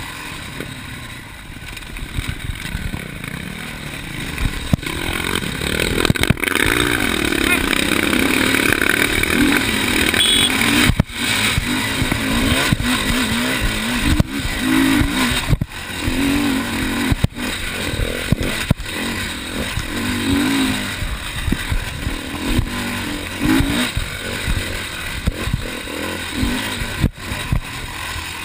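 Enduro motorcycle engine under hard throttle on a rough dirt track, revving up and dropping back again and again as the rider accelerates and shifts, louder from about five seconds in.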